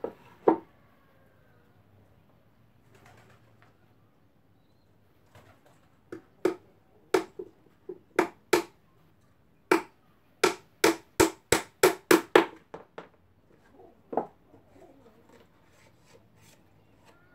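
Hammer driving nails into a small wooden speaker box: two sharp knocks at the start, then a run of about fifteen sharp wooden knocks from about six seconds in, closest together just past the middle, and one more knock later.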